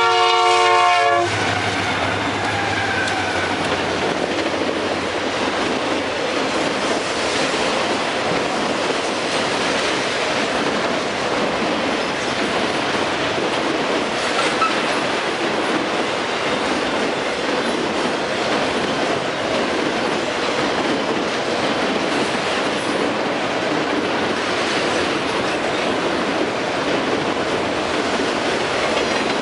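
Union Pacific freight train passing close by: the locomotive horn is still sounding its chord and cuts off about a second in, the locomotives' engines fade over the next few seconds, then a steady rumble of autorack cars' wheels rolling over the rails.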